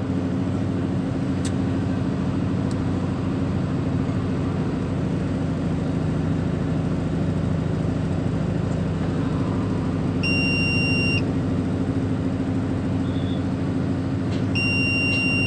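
Mobile crane's diesel engine running steadily, heard from inside the operator's cab. An electronic warning buzzer beeps twice, each beep about a second long, about ten seconds in and again near the end.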